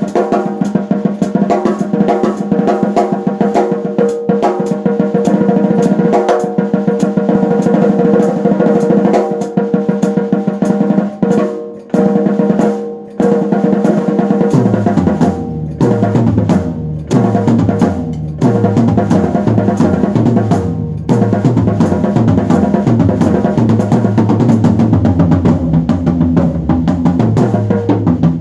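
Music led by a drum kit playing a fast, busy beat over sustained chords. About halfway through, after two short breaks, a bass line comes in.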